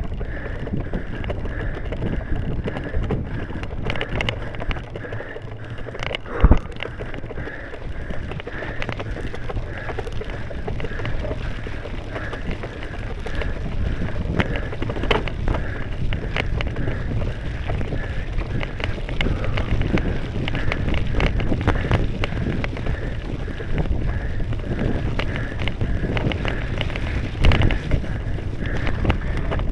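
Wind rumbling on the microphone of a moving handheld camera, with a faint high squeak repeating about every half second and two sharp knocks, one about six seconds in and one near the end.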